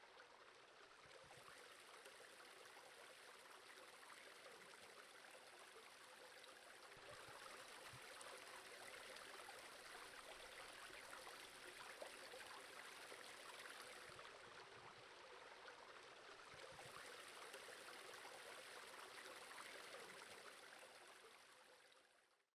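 Faint creek water running over rocks, a steady rushing that fades out near the end.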